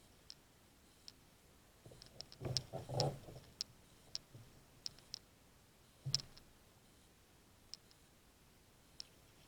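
Scattered light clicks at irregular intervals, with a short cluster of louder knocks and thuds about two and a half seconds in and another knock about six seconds in.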